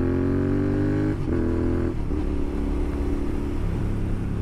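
Royal Enfield Continental GT 650's 648 cc parallel-twin engine running through a Red Rooster Performance slip-on exhaust. Its pitch shifts with short breaks about a second and two seconds in, then it holds steadier.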